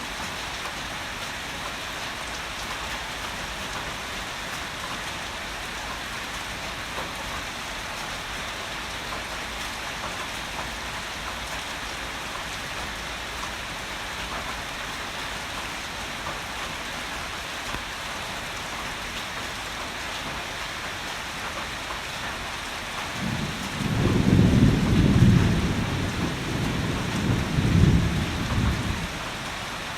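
Heavy rain falling in a steady hiss, with a roll of thunder rumbling in about three-quarters of the way through, swelling twice and fading out before the end.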